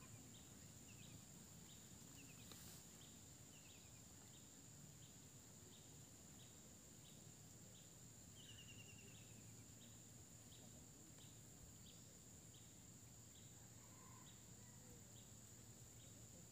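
Faint night-time insect chorus: a steady high-pitched drone with a short chirp repeating about every two-thirds of a second, and a few brief rapid trills, over a low hum.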